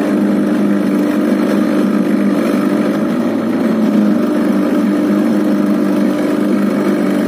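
Small fishing boat's engine running steadily at cruising speed, a constant low drone over a hiss of wind and water.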